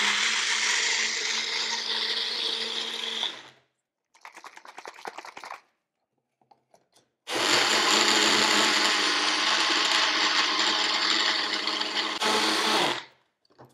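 Magic Bullet personal blender running steadily, blending pancake batter of sweet potato, eggs and protein powder. It stops about three and a half seconds in, a faint rattle follows, and after a few seconds it runs again until near the end.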